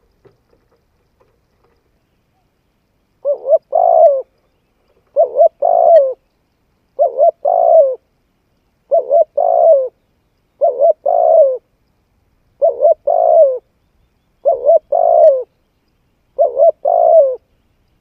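Spotted dove cooing: a three-note phrase, two short notes and then a longer one, repeated eight times about every two seconds, beginning about three seconds in.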